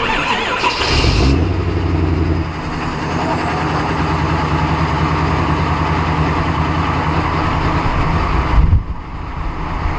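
Ford F-350 Super Duty engine cold-starting in deep cold (about −22 °C oil): a brief crank, the engine catches about a second in, runs at a raised speed, then settles to a steady idle at the exhaust tips near the 2.5-second mark. A short loud bump comes near the end.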